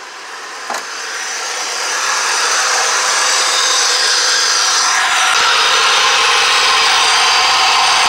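Supercharged Honda DOHC VTEC four-cylinder idling, heard up close in the open engine bay: a steady intake hiss with faint high whines, growing louder over the first two seconds or so.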